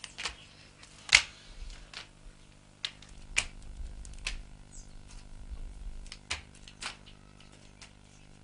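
A series of sharp, irregular clicks, about nine over several seconds, the loudest about a second in.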